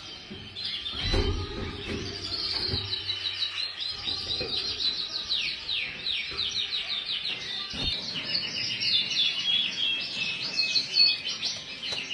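Frill canary singing in fast rolling trills of rapidly repeated notes, moving from one trill to the next without a break. A few low thumps come in the first seconds and a knock near the eight-second mark.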